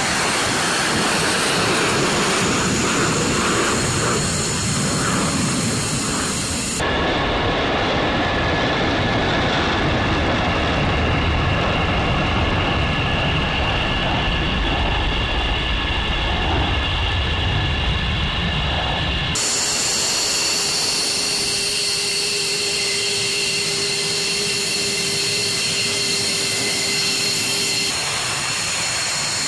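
Fighter jet engines at takeoff power, a loud steady jet noise as an F-15E Strike Eagle's twin afterburning turbofans climb it away. The sound changes abruptly twice where the footage is cut, and the last stretch holds a steady high turbine whine.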